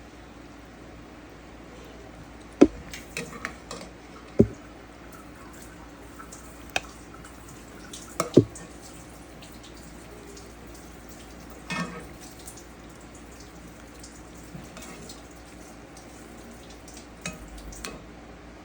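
A serving spoon knocking and scraping against a pot and plate as food is dished out: three sharp knocks in the first half, then a few softer clinks.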